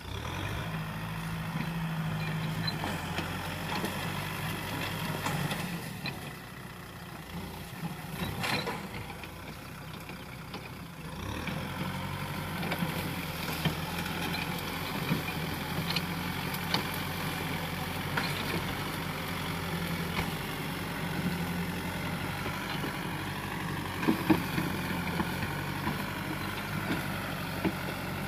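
Kubota farm tractor's diesel engine running under load while it drags a disc plough through brush. The engine note drops for a few seconds near the middle and then picks up again. A few sharp cracks come through over it.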